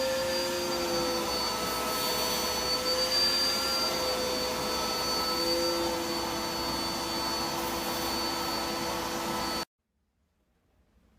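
A small electric motor running steadily, a rushing noise with a steady whine on top, cutting off suddenly near the end.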